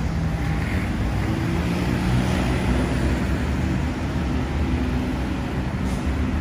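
City street traffic: vehicle engines running and road noise, a steady low hum without pauses.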